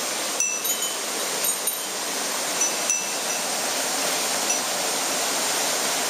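Mountain stream water rushing steadily over rocks, with a few brief high-pitched notes here and there.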